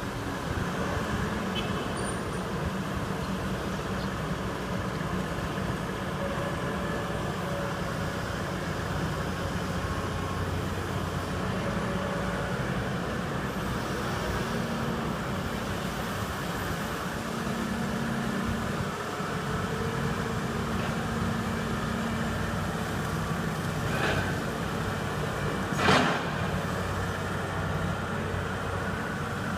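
Heavy diesel construction machinery running steadily at a concrete pour, with two sharp metallic clanks near the end, the second louder.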